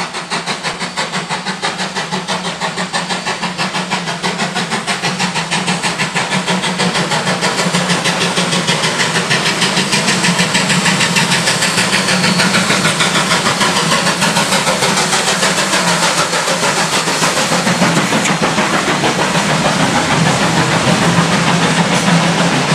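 DD17 class steam locomotive running through a station with its carriages, a rapid, even beat of exhaust and steam hiss growing louder as it draws near and passes.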